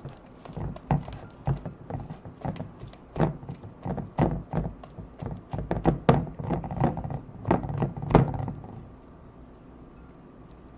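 Slime being mixed in a bowl: irregular wet thunks and knocks, several a second, that stop about eight and a half seconds in.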